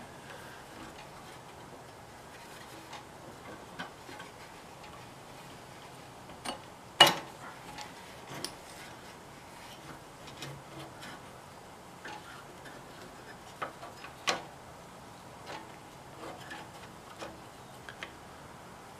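Scattered metal clicks and clinks of rototiller belt-drive parts (pulley bracket, idler arm and linkage) being handled and fitted by hand, with one sharper clank partway through and a few lighter knocks later.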